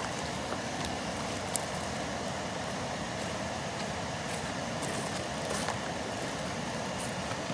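Camp stove burner running on high flame, a steady rushing hiss while it heats a pot of water, with a few faint clicks.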